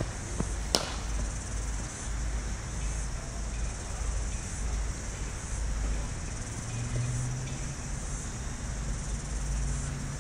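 A cricket bat strikes a ball once with a sharp crack about a second in, over a steady outdoor background hiss.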